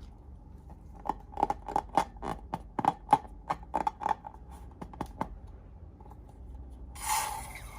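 Scissors snipping, a quick run of about a dozen crisp snips at roughly three a second, followed near the end by a rustling scrape.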